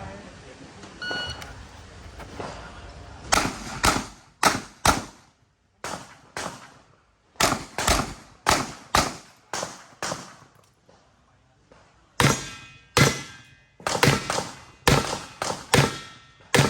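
A shot timer's short electronic beep about a second in, then a revolver firing a fast string of shots, mostly in pairs, during an IPSC stage. A pause of about two seconds near the middle breaks the string, and the shots then carry on at the same pace.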